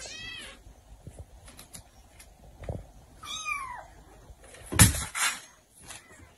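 Kitten mewing twice: a short high mew right at the start and a longer mew falling in pitch about three seconds in. A pair of loud thuds about five seconds in is the loudest sound.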